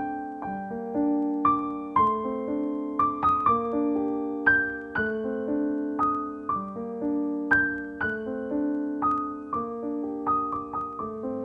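Background piano music: a slow melody of single struck notes, each left to ring and fade.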